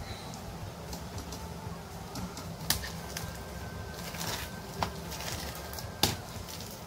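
Hands squeezing and kneading wet foam-bead slime: soft squishing and crackling, with three sharp pops as the slime is pressed and pulled apart.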